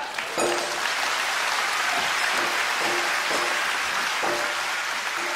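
Theatre audience applauding, steady and dense, with a few short pitched notes sounding through it.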